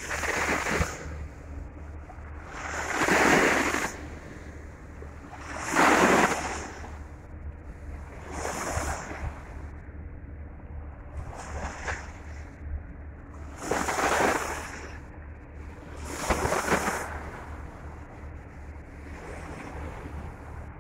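Small bay waves washing and breaking over rocks at the foot of a seawall, a surge of rushing water every two to three seconds, the loudest about three and six seconds in. A steady low rumble of wind on the microphone runs beneath.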